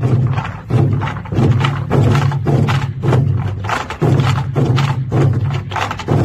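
An ensemble of Korean barrel drums played together in a fast, dense rhythm of sharp strokes, over a steady deep drum tone.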